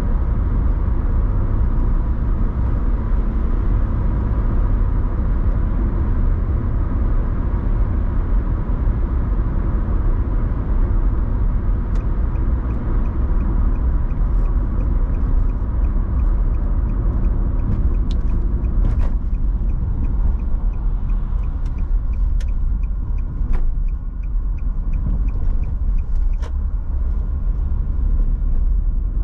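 Car driving on the open road: a steady low rumble of tyres and engine. A faint regular ticking joins about halfway through, with a few sharp clicks after it.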